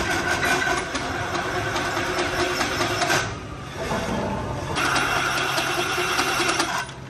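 Pillar drill press boring bolt holes through a tractor brake drum's hub flange, a steady whine of the drill cutting metal. The cutting stops a little after three seconds, starts again about a second and a half later, and stops just before the end.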